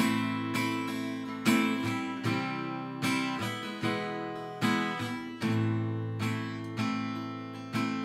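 Epiphone acoustic guitar strummed in chords, a strum about every second, each chord ringing and fading before the next.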